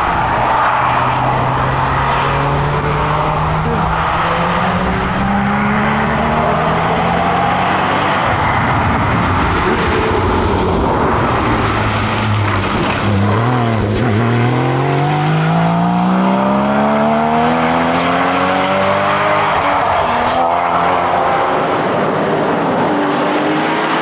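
2016 Porsche Cayman GT4's 3.8-litre flat-six engine revving hard through the gears. The pitch climbs under acceleration, drops and wavers about halfway as the car slows for a corner, then climbs steeply again.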